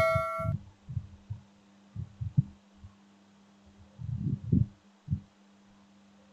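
A chime's ring fades out in the first half second, then a steady low hum runs under scattered soft, muffled low thumps.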